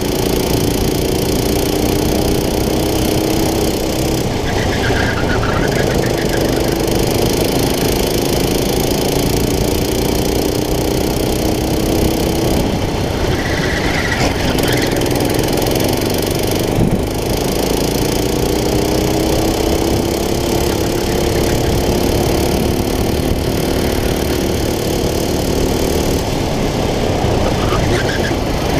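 Go-kart engine recorded onboard at racing pace, its note climbing steadily along the straights and dropping off sharply about three times as the driver lifts for corners. Brief high squeals of tyre scrub come in the corners.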